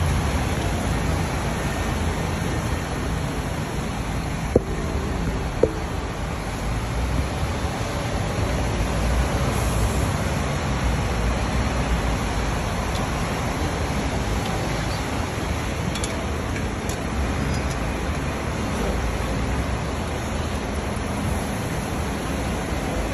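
City buses running and manoeuvring, a steady low engine rumble with general traffic noise. Two short sharp knocks come about a second apart, some five seconds in.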